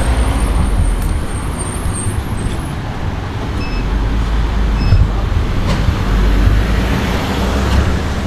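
Steady low rumble of an idling engine from a small flatbed truck alongside. Two short electronic beeps sound about a second apart near the middle.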